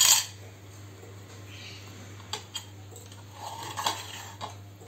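Steel spoon clicking and tapping against an aluminium idli plate as steamed idlis are scooped out of the moulds: a few light taps spread through, over a low steady hum.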